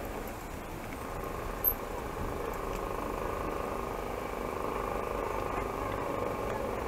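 Steady drone of motor vehicle engines running at low speed.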